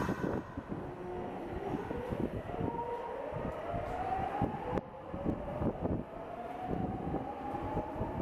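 Sakura-dori Line subway train pulling out of an underground station: a steadily rising whine from the traction motors as it accelerates away, over the rumble of wheels on rail.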